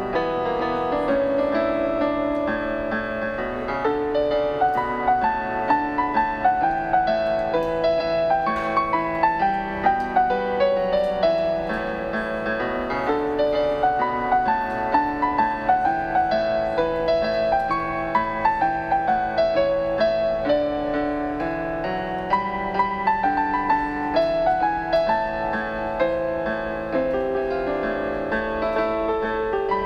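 Background piano music: a continuous melody of single notes moving up and down over held lower notes.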